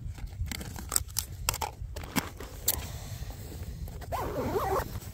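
Backpack being handled and zipped shut: a run of clicks and knocks over the first few seconds, then a zipper pulled along the pocket about four seconds in, over a low rumble.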